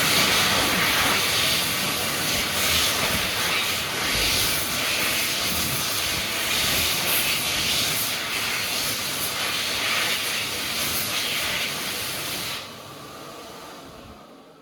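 Hokwang HK-JA05S (Dryflow Turboforce) hand dryer running, a loud steady rush of air with a slightly wavering level. About twelve and a half seconds in it cuts out, and the sound dies away over the last two seconds.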